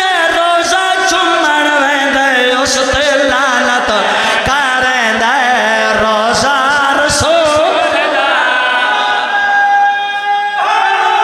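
Men singing a Punjabi devotional couplet together, unaccompanied, over a PA system, with long held notes and wavering ornaments. The singing breaks off about ten and a half seconds in.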